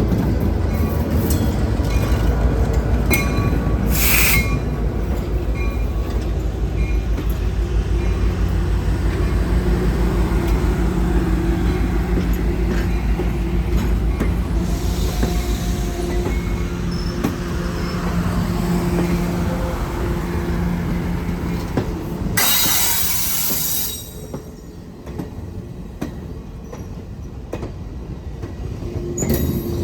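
Departing train: a steady locomotive drone with the wheels running on the rails. A loud hiss lasts about a second and a half near the end, after which the train sound drops away.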